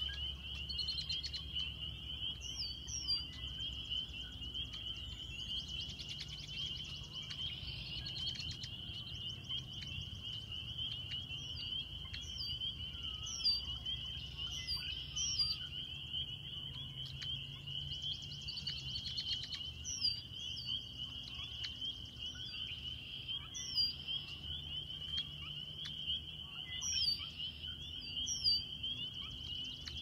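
A dense chorus of frogs calling together as one steady high trill, with birds giving short, high, falling calls every few seconds and a few fast high trills.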